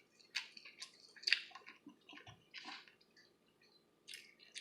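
Close-up chewing of barbecued pork ribs: irregular wet smacks and lip clicks, with a short pause near the end.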